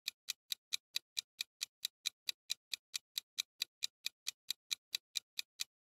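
Countdown-timer sound effect: quick, evenly spaced clock ticks, about four to five a second, marking the seconds left to answer a quiz question.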